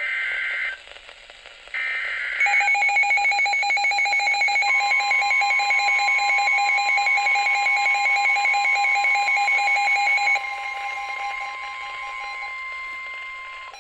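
NOAA Weather Radio alert for a severe thunderstorm warning. It opens with short buzzy digital header bursts. From about two seconds in, a receiver's rapid warbling beeping alarm plays, and the weather radio's long steady attention tone joins it a few seconds later. The warbling stops about ten seconds in, leaving the steady tone.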